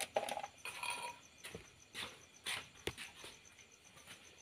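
A spoon scraping and knocking a chopped mushroom-and-bean salad out of an earthenware bowl onto a plate: a run of short, irregular scrapes and taps, with one sharper knock about three seconds in.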